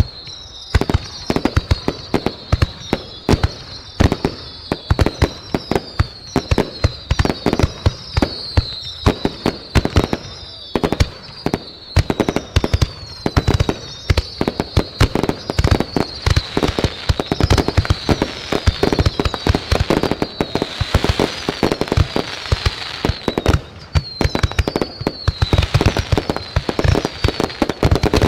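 Fireworks going off in a rapid, unbroken barrage of bangs and crackles, with a high whistle that slides down in pitch repeating over and over above them.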